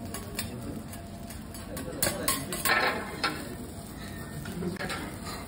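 Clatter of metal spatulas on a steel teppanyaki griddle, with a few sharp clacks and a scrape about two to three seconds in.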